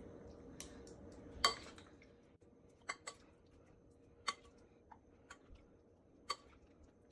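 Light clicks and taps against a glass bowl, roughly one a second, as raw chicken pieces are mixed by hand in marinade; the loudest tap comes about a second and a half in.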